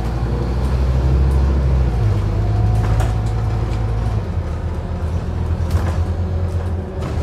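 Scania CN230UD OmniCity double-decker bus heard from inside the passenger saloon, its five-cylinder diesel engine running as the bus drives along. The engine note shifts about two seconds in and again about four seconds in, with a few light interior rattles.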